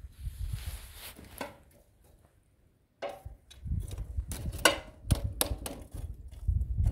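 Irregular sharp knocks and thuds over a low rumble, a dense run of them starting about three seconds in after a short lull.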